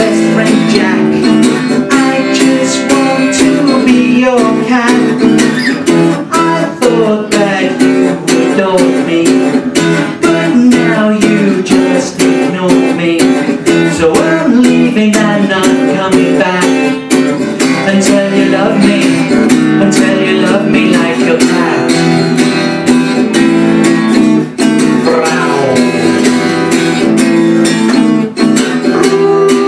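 Acoustic guitar strummed in a steady rhythm, playing a song's accompaniment or instrumental break.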